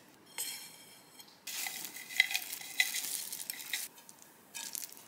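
Granola tipped from a container onto a plate of yogurt and fruit: a dry, crackly rattle of clusters landing, with sharp little clicks, lasting about two seconds. A shorter rattle comes just before it and another near the end.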